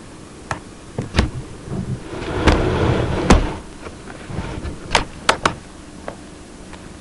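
Handling noise of a camera being moved and set up over a table: a series of sharp clicks and knocks, with a scraping rustle about two to three seconds in.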